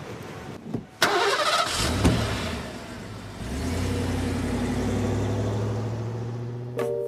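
Classic car's engine started about a second in with a sudden loud burst, then running with a steady low drone as the car pulls away, slowly fading.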